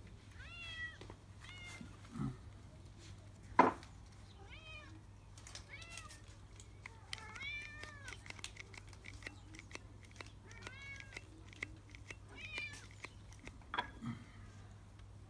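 Repeated short, high-pitched animal calls that rise and fall in pitch, about a dozen of them, with light clicks between and one sharp knock about three and a half seconds in.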